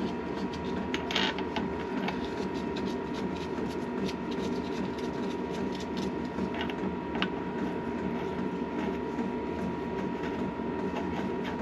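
A removal tool being worked on a Triumph T90 motorcycle engine to free a part from its shaft: irregular sharp clicks and small metallic knocks, with a few louder ones, over a steady background hum.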